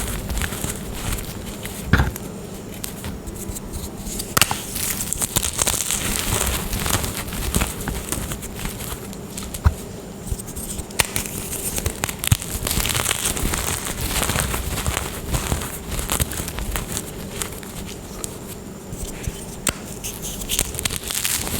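Glittery gym chalk crumbling, a dense run of crackling and crunching with a few sharper snaps along the way.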